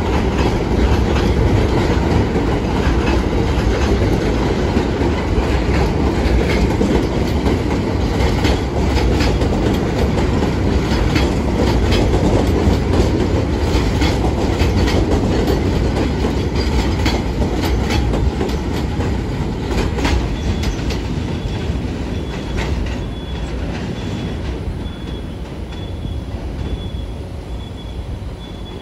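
R46 subway train running over an elevated steel structure: a heavy rumble with rapid clattering of wheels over rail joints and switches, fading away in the last few seconds. A faint, high, pulsing squeal joins from about two-thirds of the way in.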